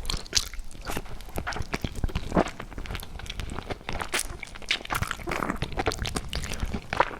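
Close-miked eating sounds: someone chewing food, with irregular crisp crunches and clicks.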